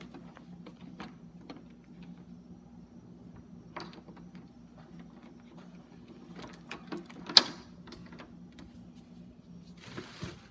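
Scattered clicks and light knocks of a power cord being plugged into a laser printer and the printer being handled, with one sharp click about seven seconds in, over a steady low hum.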